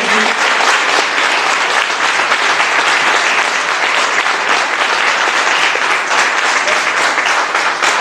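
Audience applauding, a dense, even clapping.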